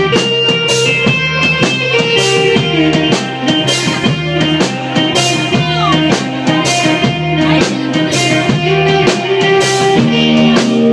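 Live rock band playing: a drum kit keeping a steady beat with regular cymbal hits under sustained guitar and bass notes.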